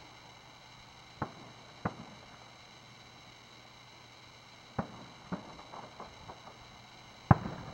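Distant aerial fireworks bursting: five separate bangs spread across a few seconds, with a few fainter pops after the fourth. The loudest bang comes near the end.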